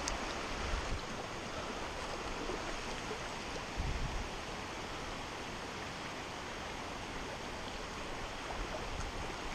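Shallow creek water rushing steadily over rocks and riffles, with a brief low bump about four seconds in.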